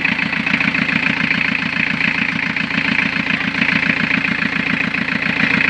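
Toyota 2C four-cylinder diesel engine idling steadily with its timing belt uncovered: a test run after a water pump replacement, with the engine running evenly.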